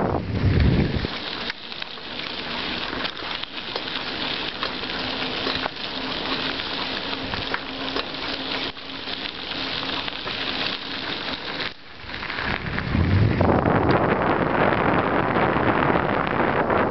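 Bicycle rolling along behind a dog team, its tyres giving a steady hiss on the road surface with a faint steady hum underneath. Wind buffets the microphone in the first second and again in the last few seconds.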